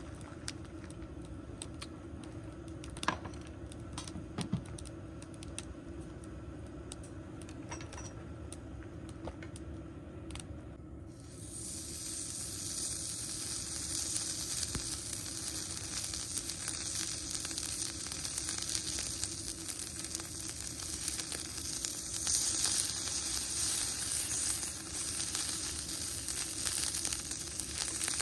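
A few light clicks of utensils, then about a third of the way in food starts sizzling loudly in a hot pan and keeps frying steadily.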